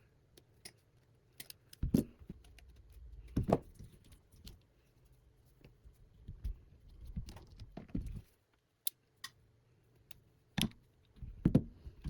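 Scattered clicks, taps and light knocks of tools and small parts being handled while the side covers are taken off a small FPV drone. The louder knocks come about 2, 3.5, 8 and 11 seconds in.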